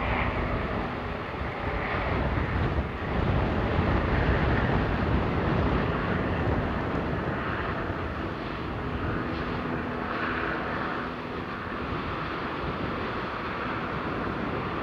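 Lava fountain jetting from a volcanic spatter cone's vent: a steady, rushing roar, a little louder for a few seconds about three seconds in.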